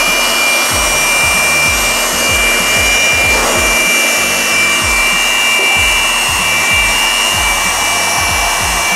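MR D.I.Y PB004 600W portable electric blower, a small brushed-motor blower, running flat out: a loud rush of air over a steady high-pitched motor whine. It winds down at the very end.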